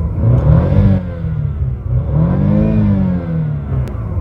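BMW car engine being revved in Park, its pitch rising and falling twice as the revs climb and drop back.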